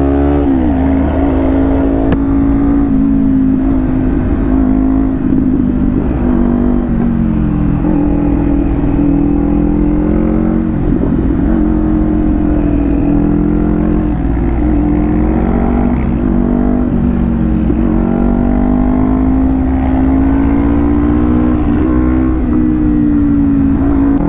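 Kawasaki Ninja 400's parallel-twin engine running steadily at cruising speed in sixth gear, its pitch easing gently up and down with the throttle, over wind rumble on the microphone.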